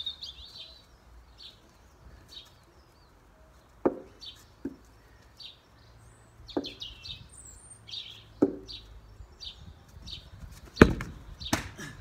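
Six sharp knocks from a blue plastic cricket bat, spaced a second or two apart, the loudest near the end. Birds chirp repeatedly behind them.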